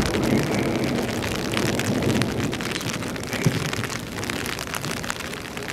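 Heavy rain falling steadily, its drops pattering as dense fine ticks on an umbrella held over the microphone, with one sharper tap about three and a half seconds in.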